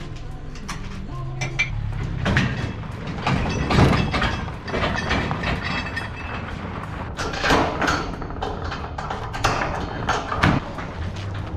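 Metal clanking and rattling from handling a boat trailer hitch and a corrugated steel storage-bay door and its padlock, with several sharp knocks, the loudest about four seconds in and near the end.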